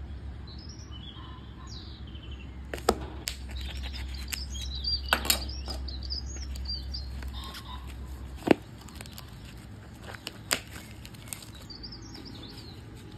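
Plastic meat packaging being handled and opened: sharp crackles and taps of the shrink-wrapped tray, the loudest about eight seconds in. Small birds chirp throughout, over a low hum that stops about eight seconds in.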